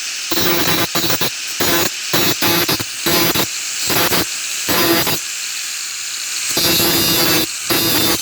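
Grinder wheel grinding the steel of an old saw blade in short, repeated passes, the grinding noise cutting in and out every half second to a second, with a longer pass near the end.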